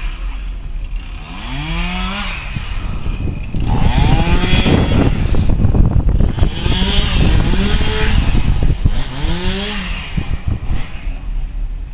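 Chainsaw engine revving up and falling back again and again, about four times, while cutting storm-downed trees.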